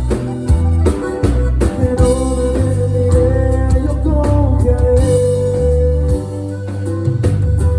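Live band playing at rehearsal: a heavy electric bass line, drum kit hits and guitar, with a long held melody note a little past the middle.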